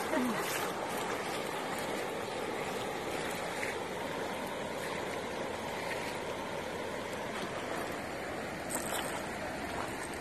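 Floodwater rushing steadily across a road, a continuous even rush of running water.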